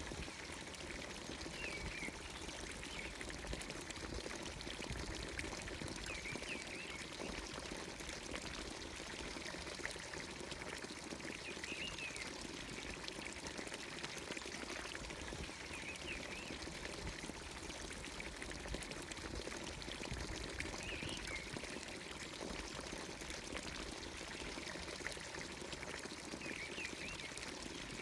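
Water pouring steadily from a traditional Anatolian village fountain's spout, with a bird's short chirping call repeating every few seconds.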